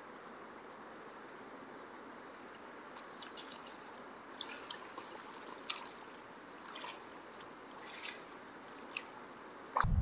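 Faint steady hiss, then from about three seconds in a scattered run of small water drips and light splashes at the river surface. Right at the end a sudden low wind rumble on the microphone comes in.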